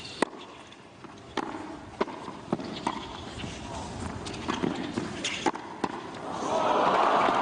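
Tennis rally: a string of sharp racket-on-ball hits and bounces, spaced about half a second to a second apart. About six seconds in, the crowd starts applauding.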